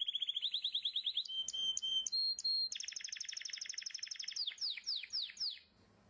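A songbird singing: a fast trill, a few held whistled notes, then a longer, faster trill that breaks into about five quick downward-sliding notes before stopping.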